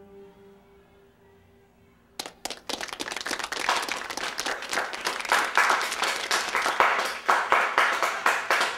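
The last held note of an acoustic guitar song fades out, then about two seconds in a small audience starts applauding, the clapping growing louder and carrying on.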